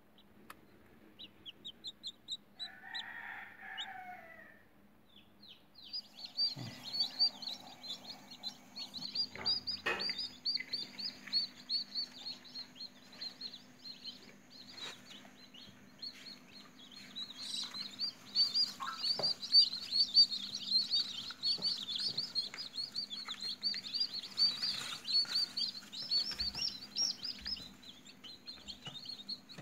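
Newly hatched chicken chicks peeping: a few scattered high, falling peeps at first, then from about six seconds in a dense, continuous chorus of many chicks. Under it runs a steady low hum, with a few short knocks.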